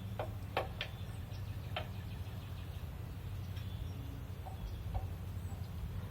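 A few sharp clicks and light taps, most of them in the first two seconds, from metal hand tools being handled during a tyre change, over a steady low hum.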